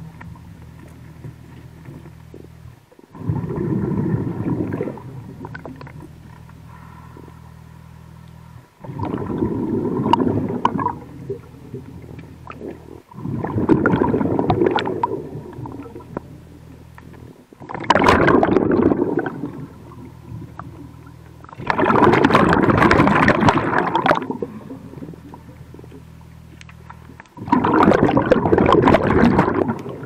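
A diver breathing underwater through a hookah-fed regulator: six loud bubbling exhalations come about every four to five seconds, each lasting one to two seconds. A low steady hum runs between the breaths.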